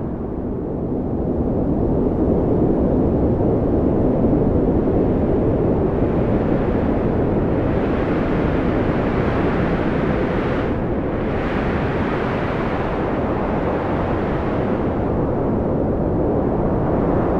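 Strong wind blowing in a loud, steady low rush that swells into a brighter gust for several seconds in the middle, easing briefly about eleven seconds in.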